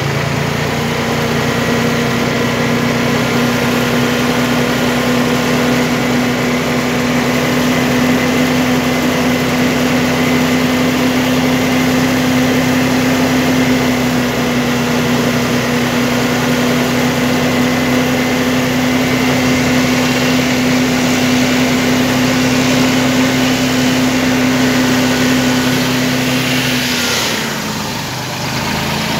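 Massey Ferguson 277G tractor running in four-wheel drive (front axle engaged), a steady engine note with a held whine over it. About a second before the end the pitch falls and the sound eases as it slows.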